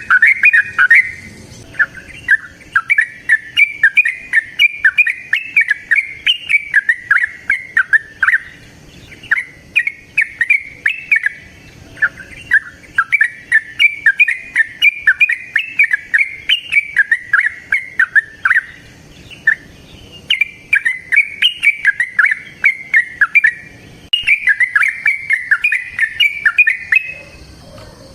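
Yellow-vented bulbul (trucukan) singing its long rolling song: rapid, bubbly, chattering phrases in runs of a few seconds, with short pauses between runs.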